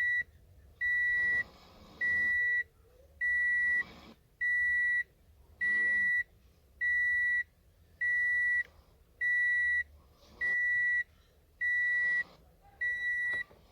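Electronic beeper sounding one high steady tone in even pulses, about one beep every 1.2 seconds, the pattern of a car's warning chime.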